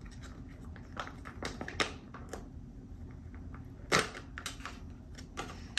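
Foil ration pouch being torn open by hand: scattered crinkles and crackles of the stiff foil, with one louder crackle about four seconds in.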